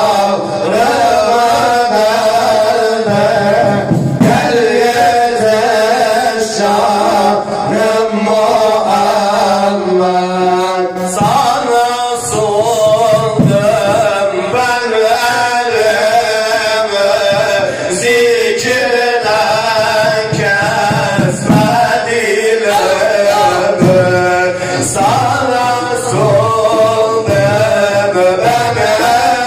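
Male voice singing a Sufi ilahi (Turkish devotional hymn), in long ornamented phrases that bend up and down.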